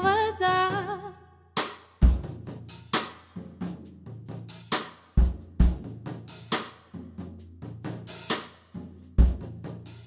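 Live drum kit playing a sparse groove almost on its own: deep kick-drum thumps, snare and rimshot strokes and cymbal hits. A held note with vibrato dies away in the first second.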